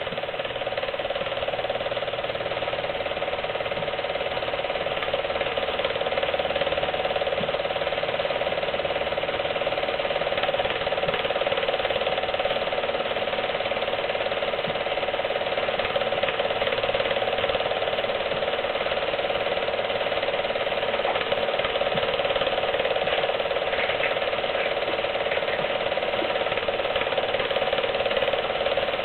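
Home-movie film projector running, its mechanism clattering steadily.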